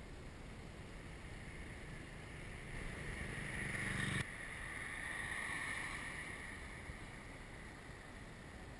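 A car passing on the road, its tyre and engine noise swelling over a couple of seconds and cutting off abruptly about four seconds in. A second, softer swell of passing-traffic noise follows and fades away.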